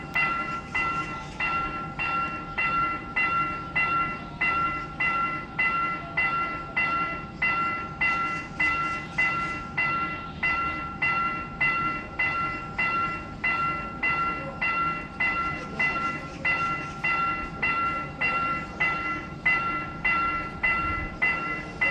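Railroad level-crossing warning bell ringing in a steady, even rhythm of about two strikes a second, each a bright ringing tone, signalling that a train is approaching.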